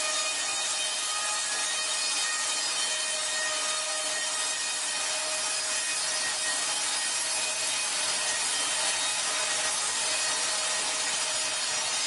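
Horizontal band sawmill blade cutting lengthwise through a log: a steady sawing hiss with a faint steady whine.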